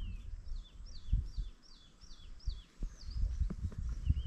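A run of high-pitched chirping calls, each note falling in pitch, about three a second, with a few more chirps near the end. Low rumbling thumps sound underneath.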